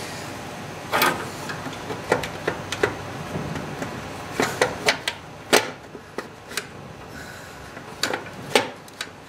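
Plastic distributor cap on a Chevy 305 V8 being pressed and wiggled onto the distributor: irregular sharp clicks and knocks, about fifteen of them. The loudest come about a second in, midway and near the end. The cap is not seating, as if something is holding it up.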